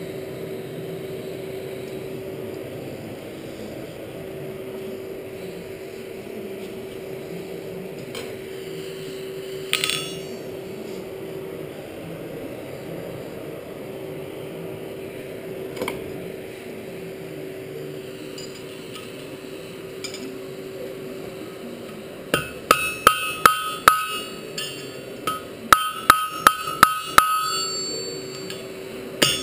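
Hand hammer peening a hot rivet on a pair of blacksmith's tongs against an anvil. About 22 seconds in come two quick runs of ringing blows, roughly three a second, with a short pause between them, over a steady hum. Before that the tongs give a couple of single clinks.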